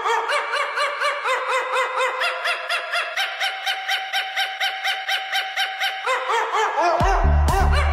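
Channel logo jingle: a fast, even run of short chirping notes, about six a second, with one held tone in the middle. Near the end a heavy electronic bass beat comes in.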